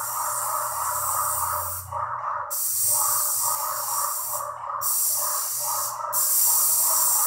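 Airless paint sprayer with a finishing tip hissing as it sprays paint, cutting out briefly three times as the trigger is let go between passes.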